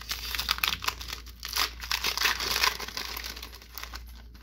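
Pokémon Sun & Moon booster pack's foil wrapper being torn open and crinkled by hand, a dense crackling for about three seconds that dies down near the end as the cards come out.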